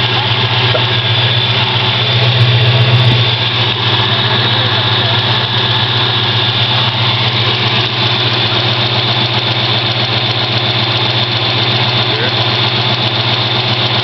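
Ford Mustang engine idling steadily with a ticking that the owner calls a ping and takes for lifter tick.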